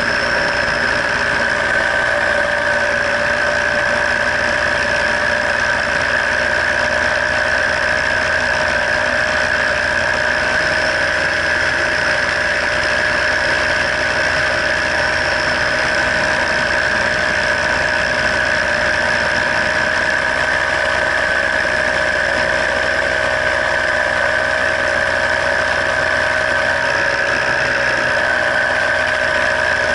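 Paramotor engine and propeller running steadily in flight, a constant drone with a high-pitched whine that holds the same pitch throughout.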